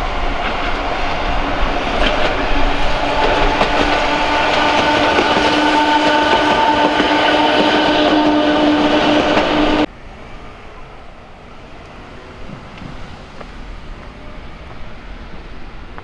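A train passing close by, its wheels on the rails joined by a steady hum. The sound cuts off abruptly about ten seconds in, leaving much quieter background noise.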